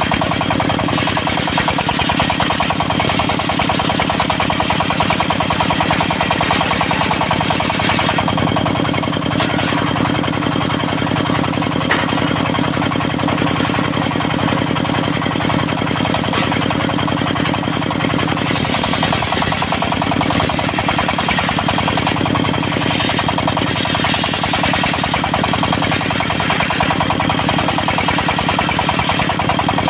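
Diesel engine of a mobile circular sawmill running steadily with a rapid, even chugging. Its tone shifts for a stretch in the middle.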